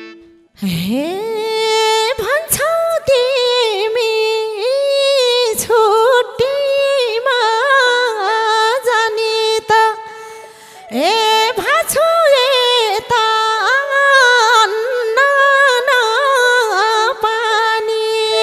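Nepali dohori folk music between sung verses: a solo melody with sliding pitch bends and quick ornaments, the drum mostly dropping out. The melody breaks off briefly around ten seconds in, then comes back with a long upward slide.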